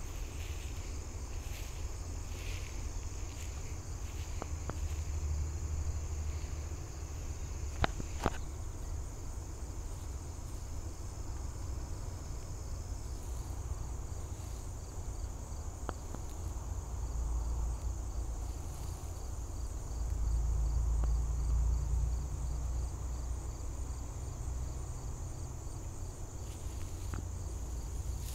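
Steady, high-pitched insect chorus, with a low rumble underneath and two sharp clicks about eight seconds in.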